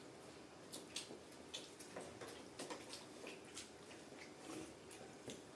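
Faint wet mouth sounds of eating: chewing and lip-smacking, heard as a string of short, irregular clicks.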